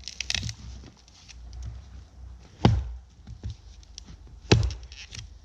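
Axe chopping into a dead tree trunk: two heavy strikes about two seconds apart, with a few lighter knocks just before the first.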